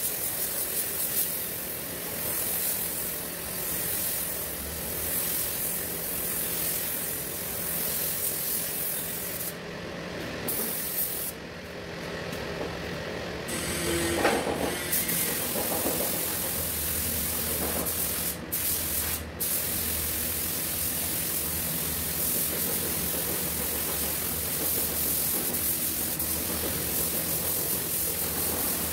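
Compressed-air gravity-feed paint spray gun hissing steadily as it atomises paint onto car body panels. It stops for a second or two twice near the middle and briefly twice more later. A steady low hum runs underneath in the second half.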